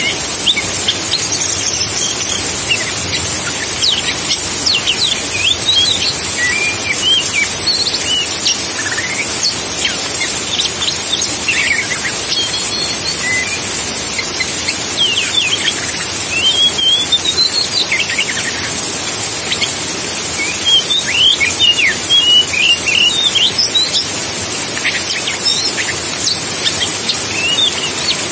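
Oriental magpie-robin singing: scattered short whistles and quick sweeping notes, coming thicker in the second half, over a steady high hiss.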